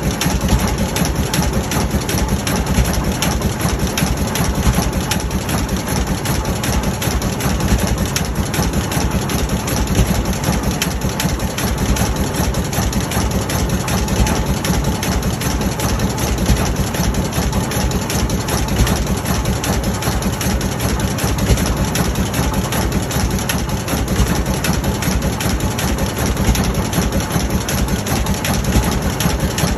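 Rumely OilPull Type E tractor's big two-cylinder engine running steadily, an even beat of firing strokes throughout.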